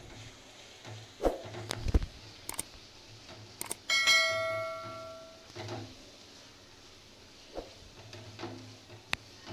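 A wooden spatula knocks and scrapes against an aluminium kadai, stirring thick masala, in scattered knocks. About four seconds in, a click is followed by a bright bell-like chime that rings and fades over a second or so: a YouTube subscribe-button sound effect.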